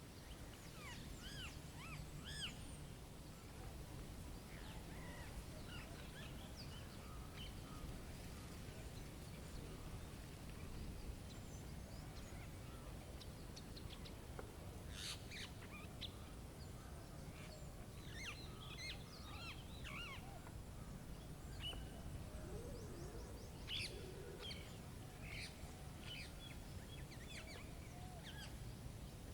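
Small songbirds at a feeder chirping and calling: many short, high calls scattered throughout, some in quick clusters, over a steady low rumble of storm wind.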